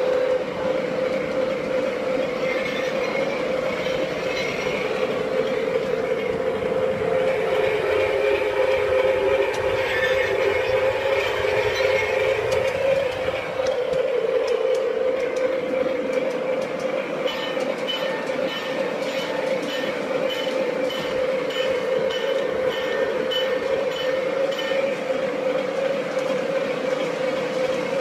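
Aristo-Craft Alco RS-3 G-scale model locomotive running along its track, heard from on board: a steady mechanical hum with the rattle of the wheels on the rails, and a run of evenly spaced light ticks in the second half.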